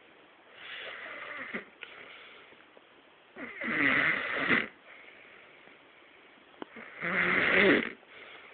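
A sleeping man snoring: a softer rasping breath about a second in, then two loud snores roughly three and a half seconds apart, each lasting about a second.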